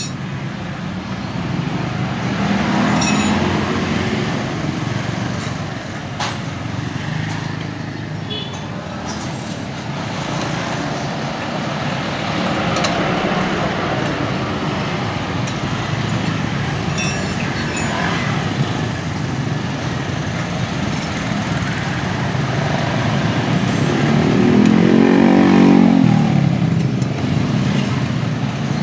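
Street traffic going by steadily, with a motorbike passing close near the end, its engine pitch rising and then falling as it goes by. There are a few brief light clicks.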